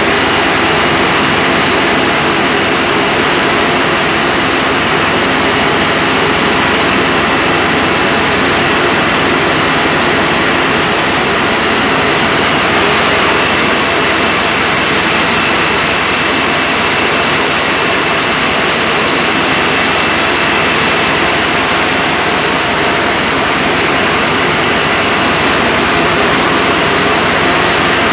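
Steady, loud machine noise with a faint high whine on top, unchanging throughout.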